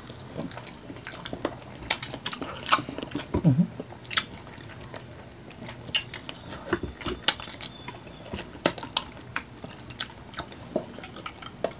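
Close-up mouth sounds of people eating braised chicken feet adobo by hand: irregular wet smacks, sucks and clicks as the skin and tendon are chewed and sucked off the small bones.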